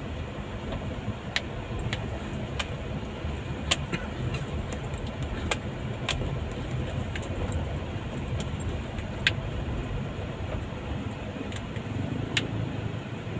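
Car on a rough road, heard from inside the cabin: a steady low rumble of engine and tyres, with irregular sharp clicks and rattles about once a second.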